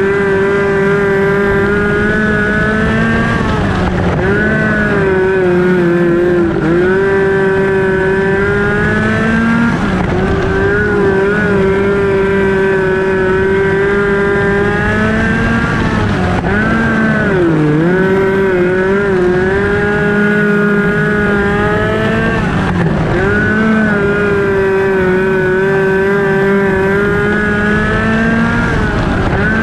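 Onboard sound of a Ford Focus-engined midget race car's four-cylinder running hard at high revs. The pitch drops briefly several times as the driver lifts for the corners, then climbs back along the straights.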